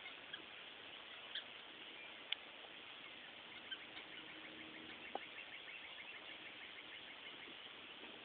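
Pet red foxes at play, heard faintly. There are a few sharp clicks and many brief, faint high squeaks over a steady hiss.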